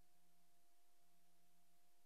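Near silence: only a faint steady hiss and low hum, with no sound recorded on the film.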